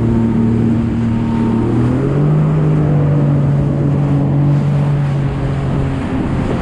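Jet ski engine running under way, its pitch stepping up about two seconds in and easing off near the end. Steady wind and water rush sit over it.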